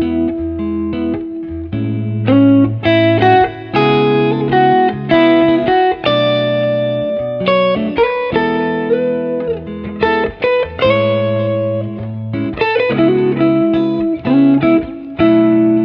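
Background music played on guitar, with a bass line and notes that change about once a second.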